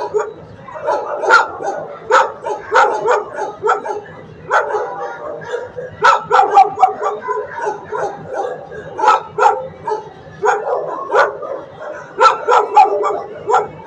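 Dogs in shelter kennels barking, short sharp barks coming in quick clusters every second or two without let-up.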